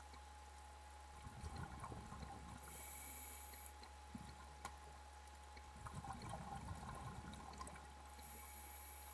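Faint, muffled water sounds heard through an underwater camera's housing: a steady low hum with two short spells of low gurgling, about a second in and again past the middle.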